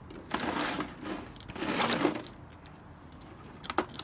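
Metal sockets rattling loose inside a molded plastic socket-set case as it is shaken, in two bursts, with a sharp click near the end. The sockets shift because the case doesn't grip them.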